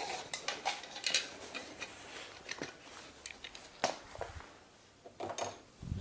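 Bicycle tyre being worked off its rim by hand, with a plastic tyre lever hooked under the bead: scattered clicks, taps and scrapes of rubber and plastic against the metal rim. A couple of dull knocks come near the end.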